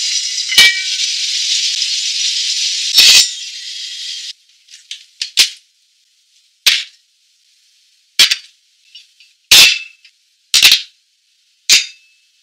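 A steady high hiss of food sizzling in a hot pot for about the first four seconds, then a string of about eight short, sharp clicks and clinks, spaced a second or so apart with silence between them.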